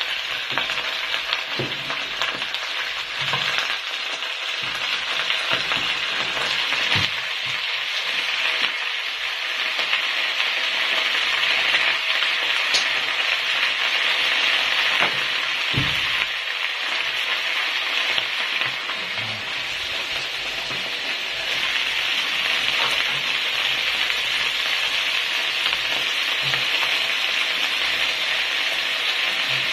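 Choy sum stir-frying in hot oil in a pan: a steady sizzling hiss as the greens are stirred, with a few short low knocks scattered through it.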